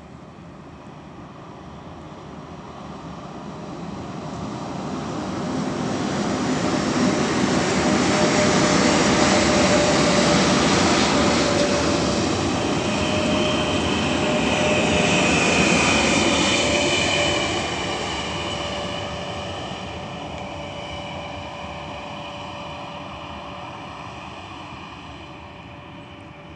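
Pair of coupled 3ES5K 'Ermak' electric locomotives running light past at close range. Wheels rumble on the rails under a steady whine. The sound grows as they approach, is loudest midway and fades as they draw away.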